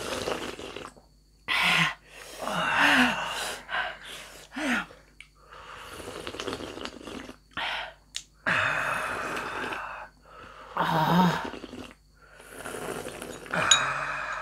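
Mouth sounds of eating hot momos and soup: repeated breathy gasps and slurps, with a few short hums in between.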